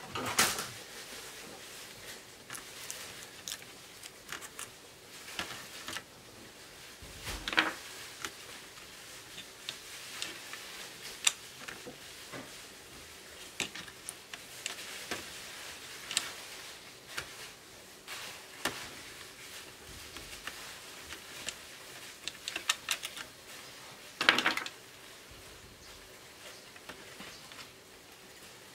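Scattered small clicks, taps and plastic knocks from hands working inside an opened laptop's plastic base, handling small parts and connectors. A few louder knocks stand out, about half a second in, near the middle and about three quarters of the way through.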